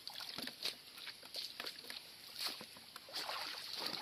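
Splashing and squelching in shallow muddy water as rubber boots wade through it and hands work in the mud, in irregular short strokes.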